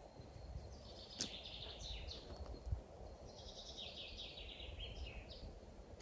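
A songbird singing two rapid trilled phrases, each sliding down in pitch, over a low steady rumble from the open hillside.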